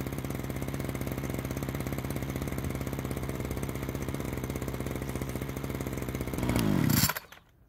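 Small 25 cc two-stroke engine of a NAC TP248-10SP petrol string trimmer idling steadily, just started with the choke switched off. Near the end it briefly gets louder, then winds down and stops.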